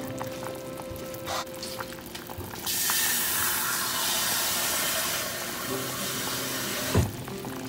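A steady rush of water starts abruptly about two and a half seconds in, holds for about four seconds, then cuts off with a short knock. Faint background music runs underneath.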